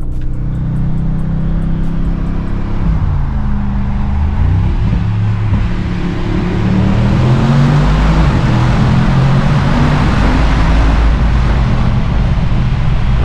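Mercedes-AMG G63's twin-turbo 4.0-litre V8 accelerating in Sport Plus mode through a tunnel, heard from inside the cabin. The engine note climbs, dips at an upshift about three seconds in, and climbs again, getting louder from about halfway through.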